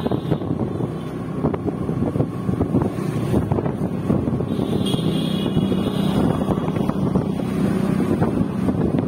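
Vehicle driving along a road: steady engine and road rumble, with wind buffeting the microphone. A short higher-pitched tone sounds about five seconds in.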